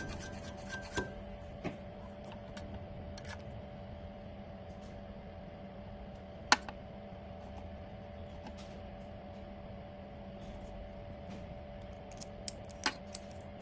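Steady low hum of a CNC key cutting machine, with scattered light clicks and taps; one sharper click comes about six and a half seconds in, and several more near the end.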